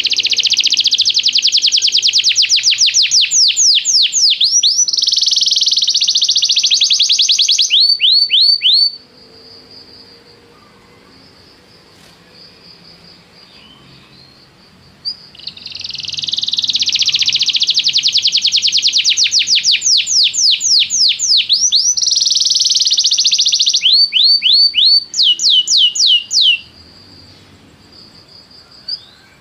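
Domestic canary singing long rolling song phrases: fast trills and runs of rapidly repeated swept notes. A quieter pause of about six seconds falls between the first and second phrase, and the second phrase stops a few seconds before the end.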